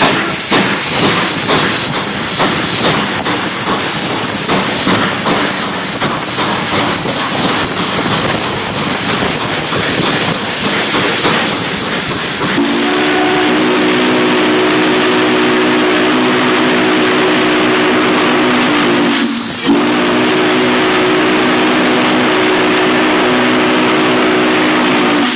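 Spokane, Portland & Seattle 700 steam locomotive heard from its cab. For about the first half there is a loud rush of steam and running noise. Then the steam whistle blows a long, steady chord of several notes, breaks off briefly, and sounds again.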